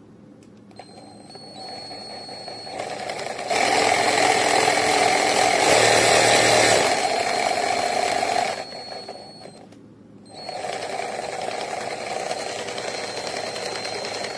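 Cordless reciprocating saw running. Its motor speeds up in steps and is loudest in the middle, then stops about ten seconds in and starts again.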